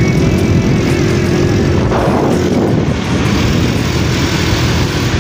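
Motorcycle running at steady cruising speed, with a continuous engine drone and road noise heard from the rider's seat. A faint steady hum in the mix fades out about two and a half seconds in.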